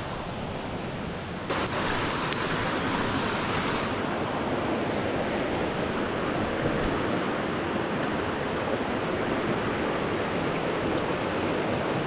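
Steady rush of flowing water, which jumps suddenly louder about one and a half seconds in and then holds steady.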